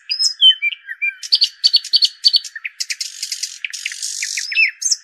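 Several songbirds chirping and calling in quick succession, short rising and falling notes with a run of rapid repeated chirps, and two harsher buzzy calls about three and four seconds in.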